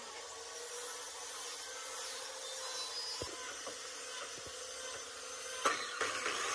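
Wooden blank handled and set against a miter saw's fence, with a few light knocks, then a sharp clack near the end as the miter saw's motor starts up with a steady hum.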